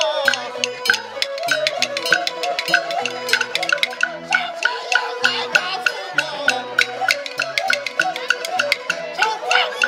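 Live Chinese traditional ensemble: a bowed erhu-type fiddle playing a wavering melody over low held notes, driven by a fast, steady beat of sharp wooden clicks.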